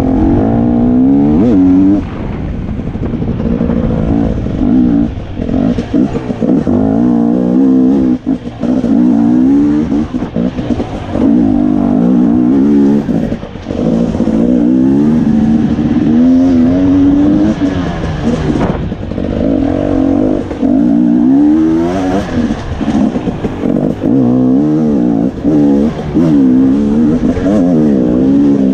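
Off-road dirt bike engine revving hard and easing off again and again, its pitch climbing and falling every second or two as the throttle is opened and chopped and the gears change.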